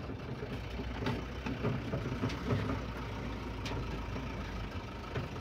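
Vehicle engine running steadily, heard from inside the cab as the vehicle turns and moves along a rough track, with a few faint clicks.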